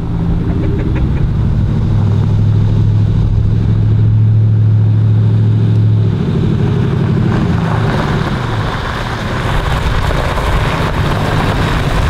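Ford F-150 pickup truck coming down a gravel driveway. A steady low engine drone fills the first half and drops away about six seconds in, then tyres crunching on gravel grow louder as the truck pulls up close.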